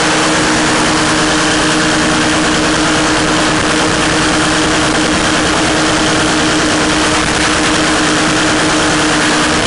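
Paramotor trike's Rotax 462 two-stroke twin engine and propeller running steadily in flight, at a constant pitch.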